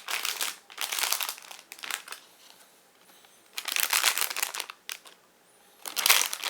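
Crinkling of a blind-box toy's packaging and its plastic baggie being handled and opened, in several separate bursts with short pauses between.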